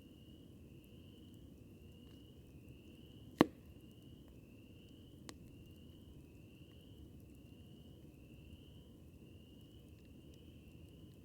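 Campfire burning under a low steady rush, with one sharp, loud pop about three seconds in and a fainter snap about two seconds later. Throughout, a high rising chirp repeats evenly a little more than once a second.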